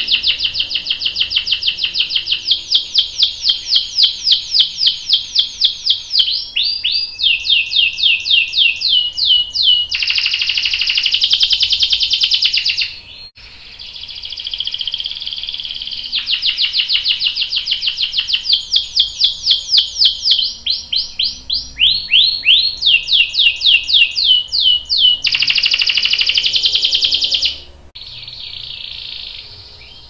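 Domestic canary singing: two long song phrases of fast repeated notes and falling sweeps, each ending in a dense rapid roll, with a short break about halfway through. The song stops near the end.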